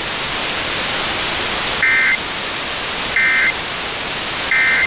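Emergency Alert System end-of-message data signal: three short bursts of warbling digital tones, evenly spaced about a second and a half apart, marking the close of the alert. A steady static hiss runs underneath.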